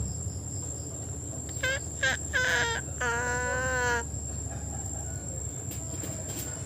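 Rooster crowing: a few short notes, then one long held final note about a second long that drops off at the end.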